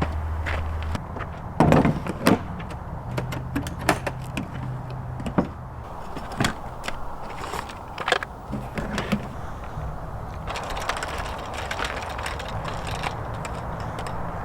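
Scattered knocks, clunks and clicks, the loudest pair about two seconds in, over a steady low rumble; a low hum cuts off about a second in.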